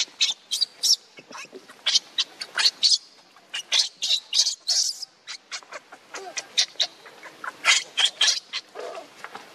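Infant pig-tailed macaque crying in many short, shrill squeals in quick succession, with a brief lull in the middle: distress cries as its mother handles it roughly while it lies on its back.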